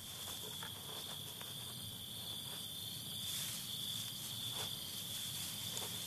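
Night insects chirring in a steady, unbroken high-pitched drone.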